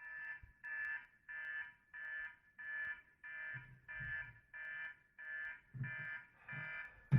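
Electronic alarm clock beeping, an even run of short high beeps at about one and a half a second. A louder low sound joins the last beep.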